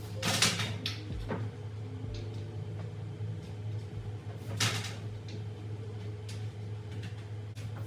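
Two loud knocks about four seconds apart, with a few fainter clicks, over a steady low hum.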